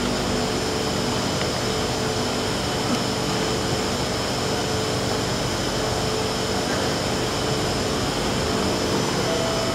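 Steady hum of an underground metro station's ventilation and machinery, an even drone with several held tones that does not rise or fall.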